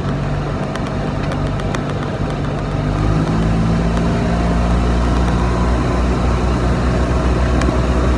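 Golf cart driving along, its motor giving a steady low hum over rolling and wind noise, a little louder from about three seconds in.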